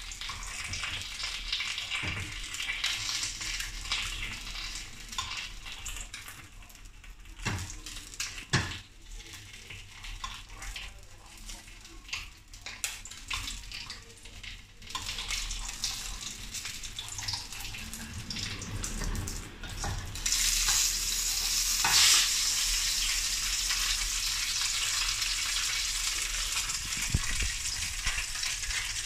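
Threadfin fish fillet sizzling as it pan-fries in hot oil in a wok, with a couple of light knocks from the metal spatula against the pan in the first third. The sizzle steps up sharply about two-thirds of the way through and stays louder.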